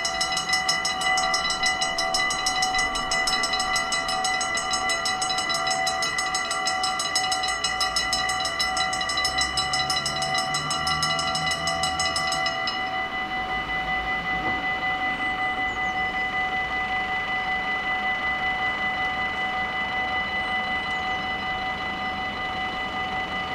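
Dutch level-crossing warning bells ringing fast and steadily. About halfway through, the brighter part of the ringing cuts off, leaving a softer steady ringing.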